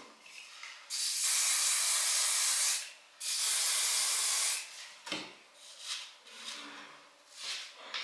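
Aerosol hairspray can spraying in two long hisses, the first about two seconds and the second about a second and a half, with a short break between them; faint rustling follows.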